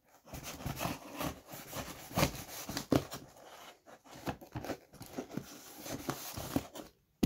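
Scissor blade slicing along the packing-tape seam of a cardboard box: an uneven run of scraping and tearing with small clicks, stopping just before the end.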